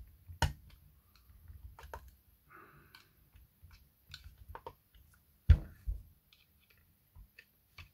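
Scattered clicks and small knocks from handling a disassembled e-bike mid-drive motor housing and working at it with a hand tool. There is a sharp knock about half a second in and two louder knocks a little past halfway.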